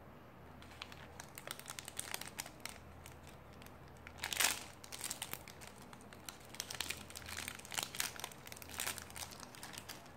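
Small pink foil blind-bag pouch crinkling and crackling as fingers handle it and open it, in irregular bursts, with the loudest burst about four and a half seconds in.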